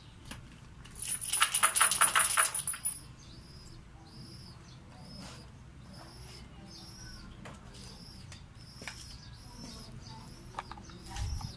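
Electric arc crackling in a loud burst of about two seconds, starting about a second in. Afterwards a bird chirps over and over, a short high call about every three-quarters of a second, with a low thump near the end.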